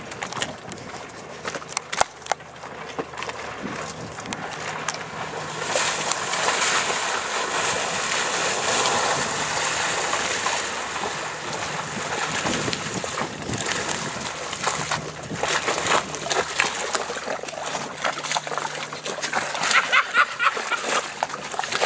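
Outboard motor of a small inflatable boat running steadily, with water rushing and splashing against the hull. The splashing grows louder about six seconds in.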